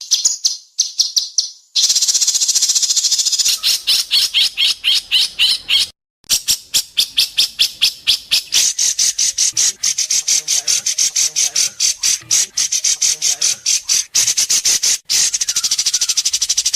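White-rumped shama (murai batu) singing its fast, sharp staccato song: long runs of rapid, high, evenly repeated notes. The bird breaks off briefly a few times between phrases.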